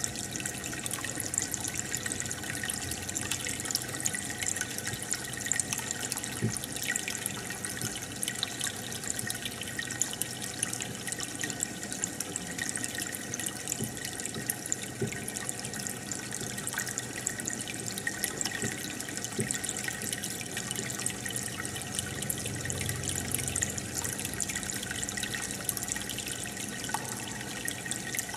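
Aquarium aeration and filter: a steady stream of air bubbles rising and breaking at the surface, with water trickling and splashing continuously.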